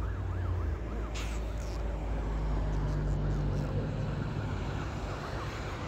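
Distant emergency-vehicle siren in a fast rising-and-falling yelp, fading out over the first four seconds or so, over a steady low rumble.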